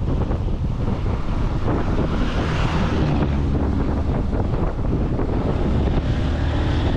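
Wind buffeting the microphone of a rider on a moving motorcycle, with the engine's steady drone underneath.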